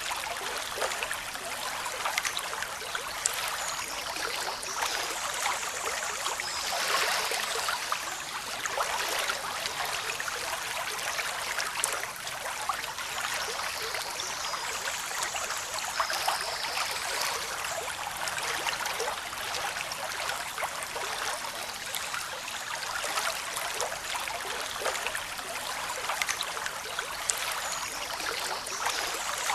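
Steady running water, a continuous splashing trickle with many small crackles and no rise and fall of waves. A few faint high chirps come through now and then.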